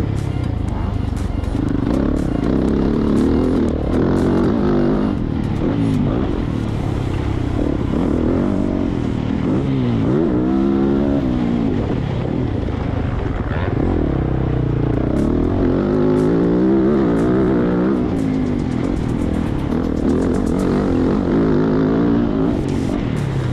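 Dirt bike engine heard from an onboard camera, its revs rising and falling again and again as the rider accelerates, shifts and rolls off around a motocross track.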